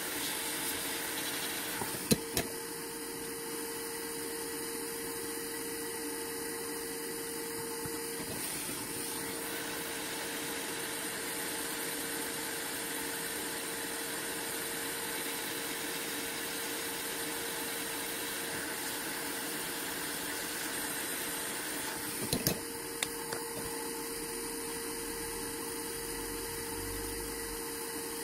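Steady hum and hiss of a small motor or fan with a constant tone, broken by a couple of sharp clicks about two seconds in and again near twenty-two seconds in.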